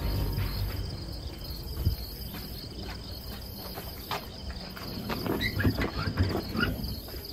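Crickets chirping in a steady high trill, with faint scattered shuffles and clicks from people moving close by.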